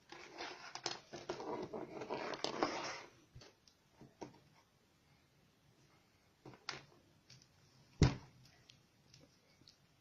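Handling noise from hands working craft materials: crackly rustling for about three seconds, then scattered light clicks and one sharp knock about eight seconds in.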